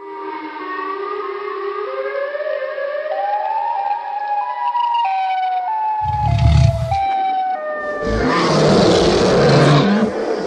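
Siren Head monster sound effect: pitched siren tones climbing in steps, then stepping back down, followed by heavy low thumps and a loud noisy roar from about eight seconds in.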